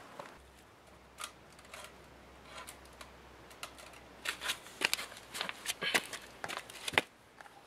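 A run of light clicks and metallic taps from hands handling parts around a bare engine block fitted with head studs and a head gasket. The taps are sparse at first, then come thick and fast from about four seconds in.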